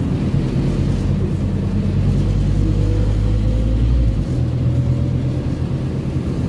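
Scania OmniCity N230UD bus's five-cylinder diesel engine and driveline heard from inside the passenger cabin while the bus drives: a steady low drone with a faint whine rising slightly in pitch, its deepest notes dropping away abruptly about four seconds in.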